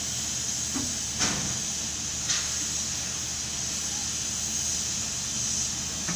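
Steady machinery hum with a hiss inside a jib crane's operator cab as the crane slews, with short sharp clicks about one and two seconds in.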